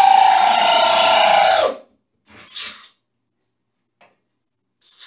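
DeWalt cordless drill boring a 3/4-inch hole into ceramic wall tile, running with a steady whine that sags in pitch and stops about a second and a half in. A brief second burst of drilling follows, and a quieter run starts near the end.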